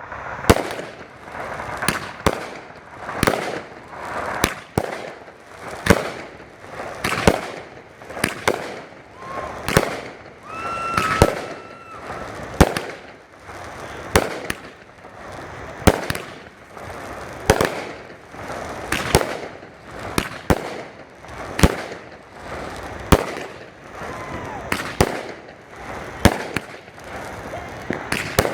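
AFW Solar Rain 500-gram fireworks cake firing its shots in a steady sequence, about one launch every second and a half. Each sharp report is followed by a spreading crackle from the gold glittering willow effects.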